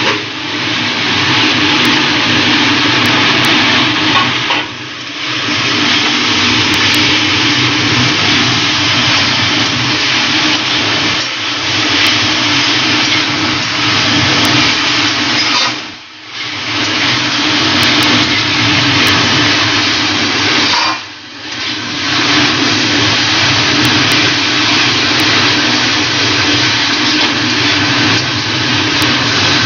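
Loud, steady rushing noise of vegetables and chicken being stir-fried in an aluminium kadhai over a high gas flame, with a steady hum beneath it. It dips briefly three times.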